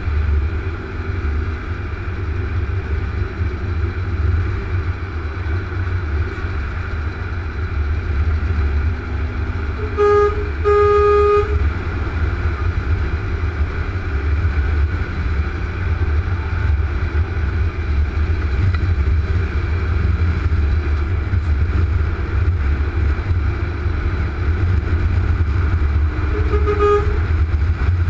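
Steady low engine and road rumble inside a truck cab at motorway speed. About ten seconds in, a vehicle horn gives two blasts, the second longer, and near the end a shorter, fainter toot.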